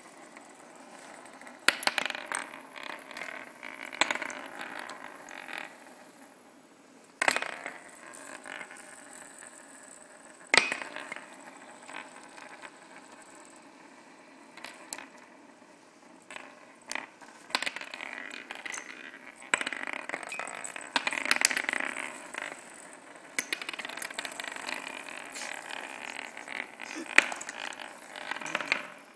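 Small white spinning tops spinning and rattling on a plywood board, with sharp clicks every few seconds as tops strike the board or each other; the loudest click comes near the end.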